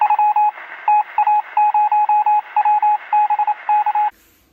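Intro sound effect of Morse-code-style beeping: one steady high tone keyed on and off in short and long pulses over a faint band of radio-like static. It cuts off suddenly near the end.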